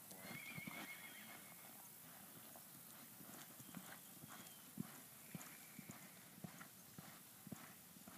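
Faint, soft hoofbeats of a horse loping on deep arena sand, a steady uneven run of dull thuds. A faint high-pitched call sounds about half a second in.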